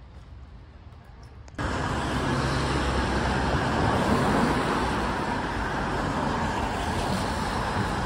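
Steady city street traffic noise, a continuous road rumble and hiss of passing cars, starting abruptly about a second and a half in.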